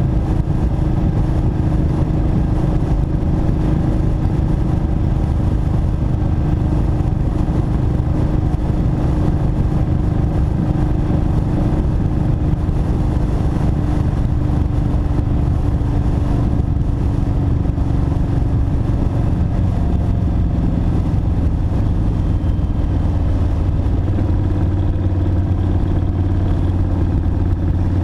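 Kawasaki Vulcan 1600 Mean Streak's V-twin engine running at freeway cruising speed, with wind and road rush. The engine note eases slowly lower as the bike slows, and a deeper low tone comes up in the last several seconds.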